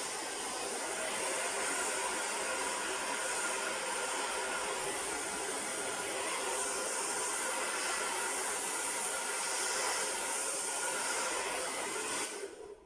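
Handheld hair dryer blowing steadily on its cool setting, drying a layer of glue spray, then switched off near the end.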